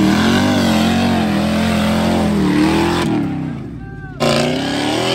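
Off-road truck engines revving hard under load on a dirt hill climb, the pitch wavering up and down. About three seconds in the sound drops and changes, then about four seconds in an engine comes back in at full revs.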